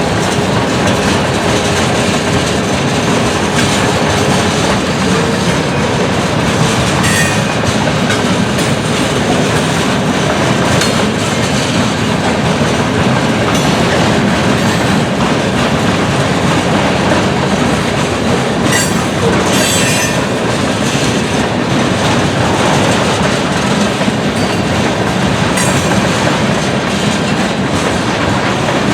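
Freight train cars rolling past on the track: a steady rumble and clatter of steel wheels over the rails, with a few brief high wheel squeals.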